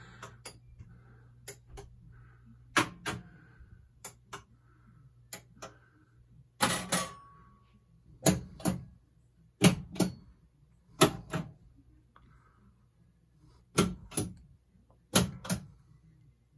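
Gottlieb System 80B pinball machine's solenoids and relays fired one after another by the relay/solenoid test, each giving a pair of sharp clacks as the coil pulls in and lets go, about every one and a half seconds. One hit about seven seconds in is louder and rings briefly. A low steady hum runs underneath. Each coil answering shows the repaired MPU board is driving it.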